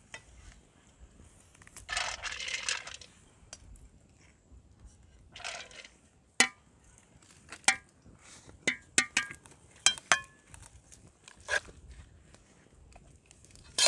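Rice being scooped with a metal scoop from a plastic bowl and dropped into a steel pot: two short swishes, then a run of sharp clinks as the scoop and a spoon knock against the steel pot and the pan of pumpkin.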